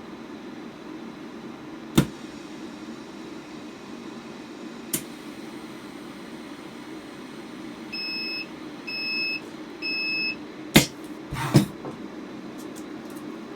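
Vacuum lamination machine humming steadily, with two sharp clicks, then three short electronic beeps about a second apart. Two louder clunks follow near the end.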